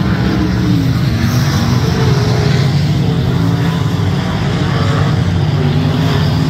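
Several winged dirt-track sprint car engines running hard together as the field races around the track, a loud steady drone with no let-up.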